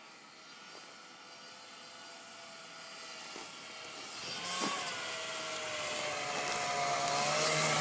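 A 1996 Arctic Cat Puma snowmobile's two-stroke engine approaching, growing steadily louder, its pitch wavering up and down as it comes.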